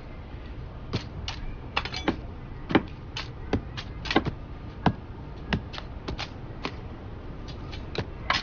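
A series of sharp, irregular clicks and knocks, roughly two a second, over a steady low rumble.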